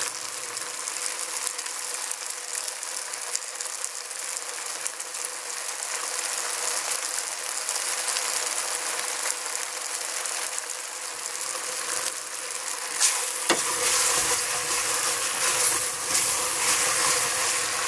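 Pasta and vegetables sizzling steadily in a hot stainless steel pot. About three-quarters of the way through, a wooden spoon starts stirring them, and the sizzle grows louder with scraping and knocks against the pot.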